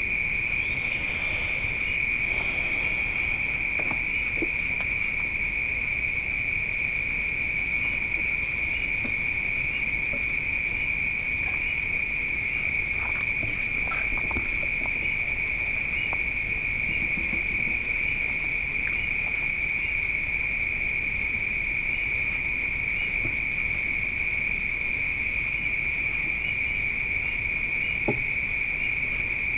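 A chorus of night insects such as crickets, a continuous high-pitched shrill in two steady pitches with a fast pulsing texture, and a few faint soft clicks here and there.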